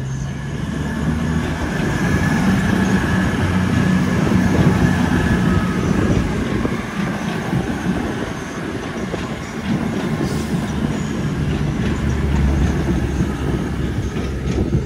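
Avanti West Coast Class 221 Super Voyager diesel multiple unit passing slowly and close by, its underfloor diesel engines running with a steady low drone over the rumble of the wheels on the track.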